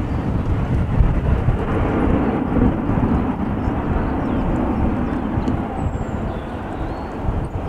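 Twin-engine jet airliner climbing away after takeoff, its engines at takeoff power giving a steady deep rumble that eases slightly towards the end as it draws away.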